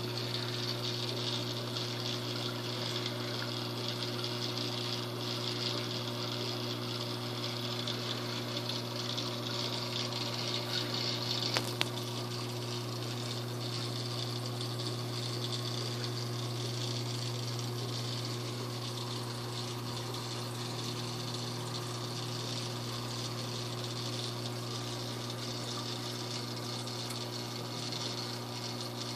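Saltwater aquarium's pump running, a steady low hum under the constant rush of water current through the tank. There is one brief click about twelve seconds in.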